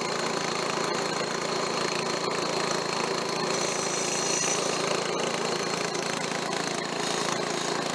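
Late-1960s Snapper rear-engine riding mower's 13.5 hp Briggs & Stratton engine running steadily.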